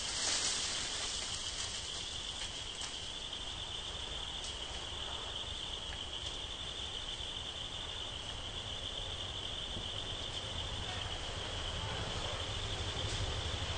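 Steady high-pitched buzzing of an insect chorus in the forest, with a few faint clicks. A low rumble comes in near the end.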